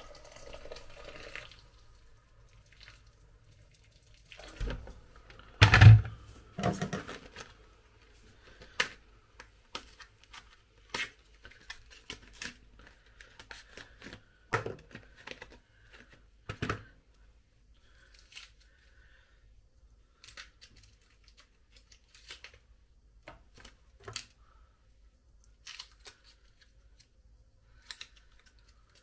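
Food packaging being torn open and handled, with crinkling and rustling. A heavy thump about six seconds in is followed by scattered sharp clicks and light knocks of kitchen handling.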